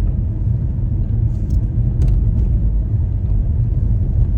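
Steady low rumble of a car driving on a snow- and ice-covered road, heard from inside the cabin, with a couple of faint clicks about one and a half and two seconds in.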